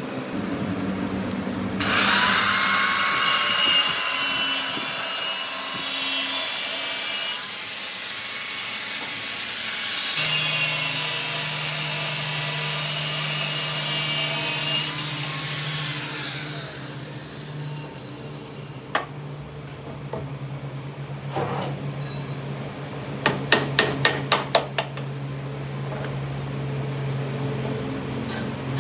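Handheld power grinder running against metal, a hissing noise with a high wavering whine for about fifteen seconds, then winding down with a falling pitch. A steady low hum carries on underneath, and about three quarters of the way through comes a quick run of about six sharp knocks.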